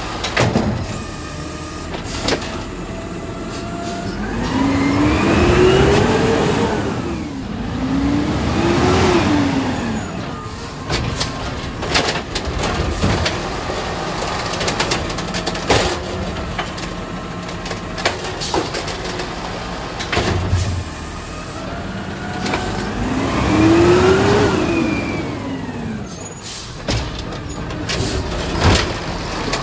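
Automated side-loader garbage truck's diesel-style engine revving up and easing off as it pulls ahead between curbside carts: twice in quick succession about five seconds in, then once more later, with air brakes hissing at the stops.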